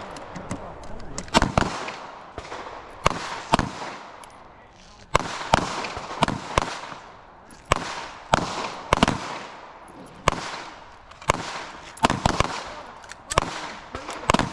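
Handgun shots on a range firing line: about twenty sharp cracks fired irregularly, some close together, each with a short echo tail.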